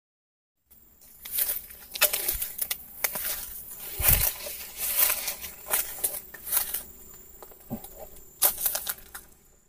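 Dry leaves and undergrowth crunching and rustling underfoot in uneven crackles, starting just under a second in, with one heavier thump about four seconds in.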